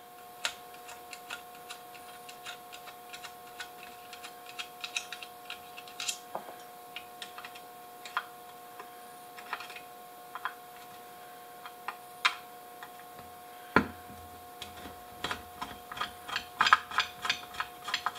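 Irregular light clicks and ticks of a hand screwdriver backing out screws and of a circuit board and its heat sink being handled, with one sharper knock about 14 seconds in and quicker clicking near the end. A faint steady hum sits underneath.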